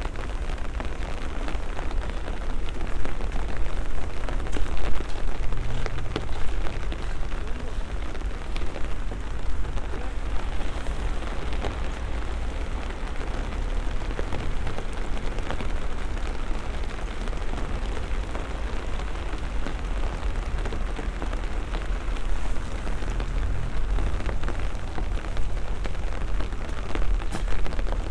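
Steady rain falling, a dense patter of small drop ticks over an even hiss, with a low rumble underneath.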